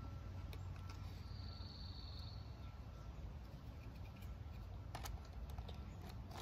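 Hard plastic clicks and knocks from an Extreme Damage Tyrannosaurus rex toy figure being handled and its limbs and tail twisted, with the sharpest clicks about five seconds in and at the very end. A bird trills briefly in the background about a second and a half in.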